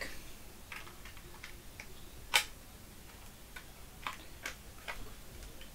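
Irregular small clicks and taps of plastic tank-model parts being fitted together and handled, with one sharper click about two and a half seconds in.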